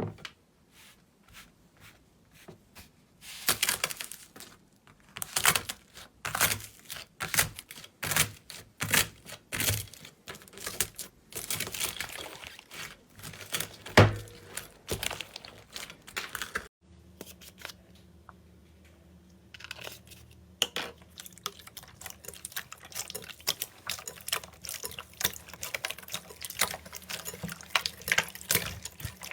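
Slime being squeezed, pressed and stretched by hand, giving a run of wet squishes, pops and crackles, with one loud pop about halfway. Near the middle it changes to quieter, faster crackling over a low hum.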